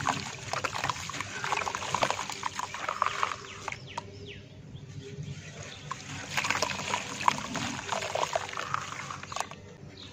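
A soft ball of dry red dirt crushed and crumbled by hand over a steel bowl, with dense crackling and the crumbs and powder trickling into the bowl. It goes quieter for a couple of seconds around the middle.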